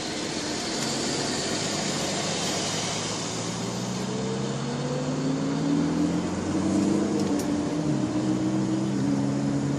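Car engine and tyre noise heard inside the cabin of a moving car. The engine's pitch rises steadily as it speeds up, then drops once near the end.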